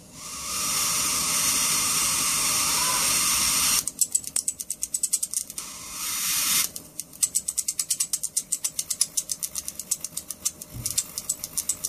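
High-voltage arc drawn from the flyback transformer lead of a Sharp CRT TV. It hisses steadily for about four seconds, then breaks into rapid crackling snaps at about eight a second, with a short hiss again in between.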